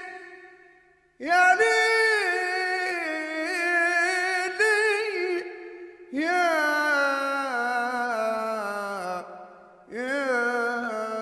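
Solo voice singing an Arabic song in three long, drawn-out phrases. Each opens with a rising swoop, then holds and slides slowly down in pitch, with short pauses between phrases.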